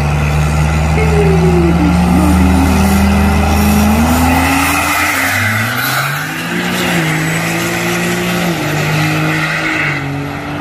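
Diesel pickup trucks accelerating hard down a drag strip. Their engine note climbs steadily for about four seconds, then drops and rises again in steps as they shift up through the gears.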